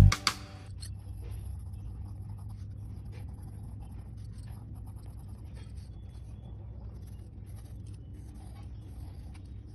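A drawing tool scratching across paper in short, irregular strokes, over a low steady hum.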